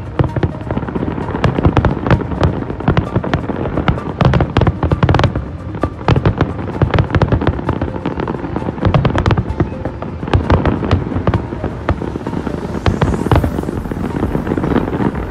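Fireworks display in a dense barrage: many shells bursting one after another, several bangs a second with crackling between them. A rising whistle near the end.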